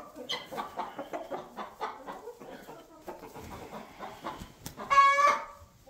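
Chickens clucking softly on straw bedding, with one loud, short squawk about five seconds in.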